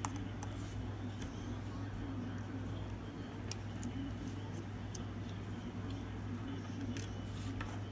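Faint, scattered clicks of a small Phillips screwdriver and tiny screws working on the battery plate of an iPhone 5C, over a steady low hum.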